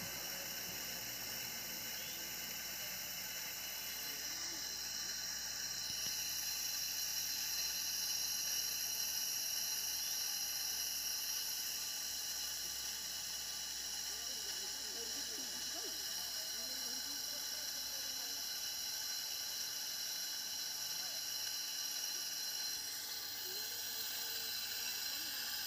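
Steady high-pitched hiss with a buzzing, trilling edge, unchanging throughout, with no distinct knocks or splashes standing out.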